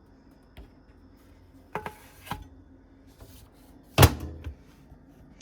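A few light clicks and knocks, then one loud sharp thump about four seconds in: a microwave oven door being shut.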